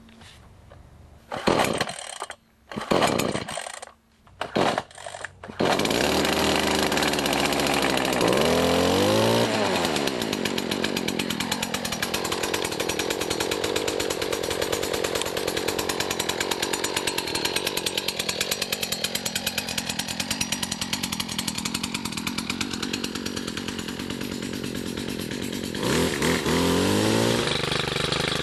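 STIHL FS 56 brushcutter's two-stroke engine being pull-started on choke: about four quick rope pulls, and on the last one it catches. It runs fast, revs up and falls back to a steady idle, then revs up briefly again near the end.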